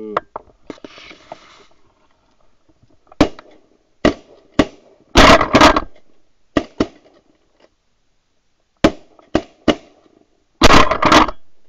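A series of about ten shotgun shots at Canada geese, some single and some fired two or three in quick succession, the loudest about five seconds in and near the end.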